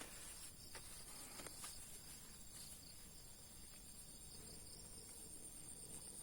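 Faint, steady, high-pitched chirring of an insect chorus, with a few soft clicks.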